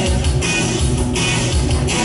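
Loud band music with a pulsing beat, part of a song in a stage musical.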